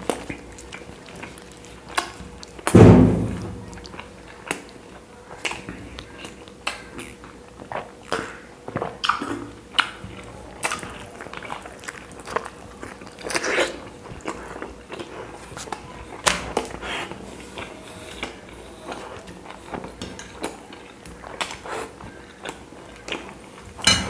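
A person chewing and biting chapati fast, with irregular wet smacks and mouth clicks. One loud low thump about three seconds in.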